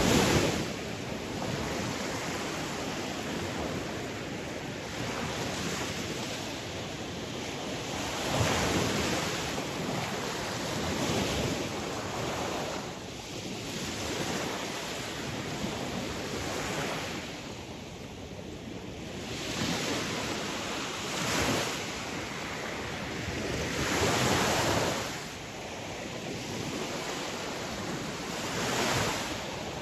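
Sea waves breaking and washing on the shore, a steady rush that swells every few seconds as each wave comes in and then falls back.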